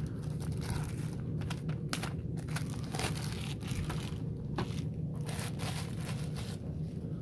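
Plastic wrapping crinkling and tearing in irregular short crackles as a trading card box is unwrapped, over a steady low hum.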